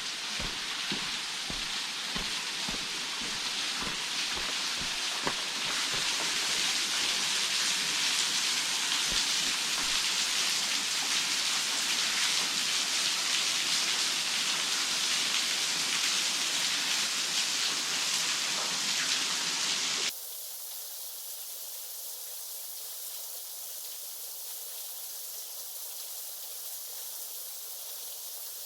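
Water falling and splashing from a small low-flow waterfall, a steady rushing patter. About 20 s in it cuts abruptly to a quieter, thinner hiss.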